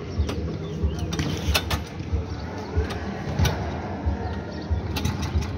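Go-kart engine rumble under a scatter of sharp clicks and knocks.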